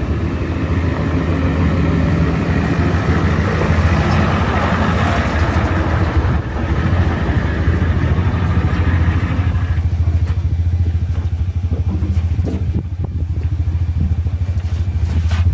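Takeuchi TL130 skid steer's diesel engine running steadily with a deep, even hum. About two-thirds of the way through, the higher, rushing part of the sound falls away and the engine runs on more quietly.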